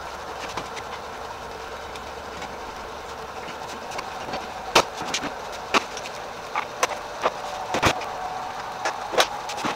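Refrigeration vacuum pump running steadily while it pulls the nitrogen charge out of the A/C system. In the second half, a scatter of sharp clicks and knocks.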